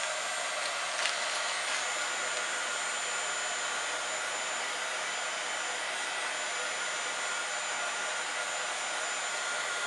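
Handheld craft heat tool running steadily, its fan blowing hot air with a thin high whine over the rush.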